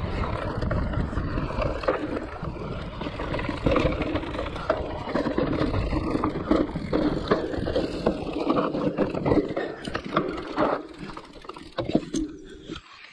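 Giant Reign E+ electric mountain bike riding down a rough trail: tyres rolling and scraping over roots and stones, with the bike rattling in many quick knocks and wind rumbling on the microphone. The noise drops off about twelve seconds in as the bike slows.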